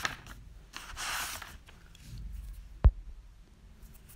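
A soft breath-like rush of air about a second in, then a single sharp click near three seconds, over a low room hum.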